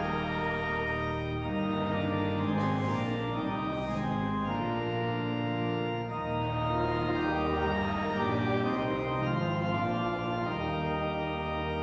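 Church organ playing slow held chords, with deep bass notes that change every second or two.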